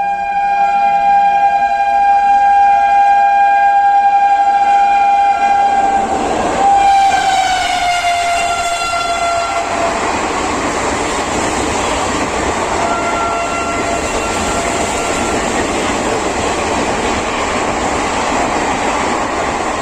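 Indian Railways express train passing at about 110 km/h, its locomotive sounding a long two-note horn that drops in pitch about six or seven seconds in as it goes by. Then the steady rush and clatter of the coaches running past, with a second, shorter horn blast a few seconds later at the lower pitch.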